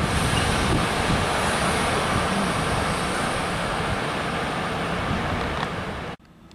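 Intermodal freight train rolling away on the rails, a loud steady rumble of wagon wheels that slowly fades as the tail end recedes. The sound cuts off abruptly about six seconds in.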